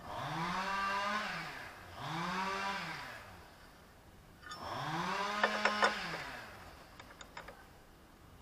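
A small electric motor runs up to speed, holds a steady hum and winds down, three times; a few sharp clicks sound during the third run.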